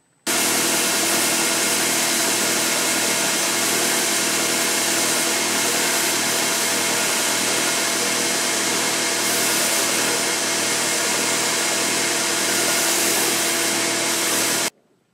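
Electric belt grinder running steadily with a steel knife blade held against its narrow abrasive belt, a hiss of grinding over the motor's hum, for the final polishing and sharpening of the edge. The sound starts suddenly just after the beginning and cuts off suddenly near the end.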